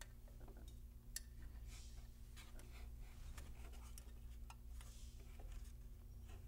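Faint handling noises: small clicks and rustles of hands stretching a battery strap into place around a scooter battery and its wiring, with one sharper click about a second in, over a low steady hum.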